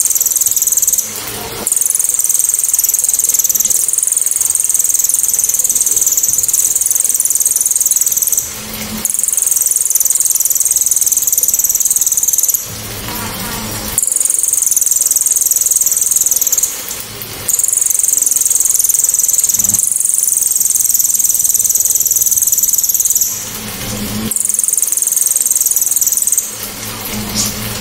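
Crested jay (cililin) giving its loud, sharp, high-pitched 'tembakan' call in long stretches of several seconds each, broken by short pauses.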